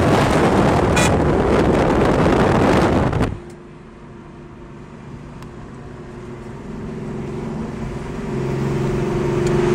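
Car driving on an open road: loud wind and road noise for about three seconds, then an abrupt drop to a quieter, steady engine drone that slowly grows louder.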